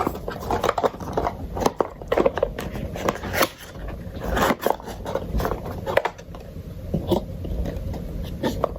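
Cardboard camera box being opened and its paper inserts handled: a string of irregular clicks, taps and rustles.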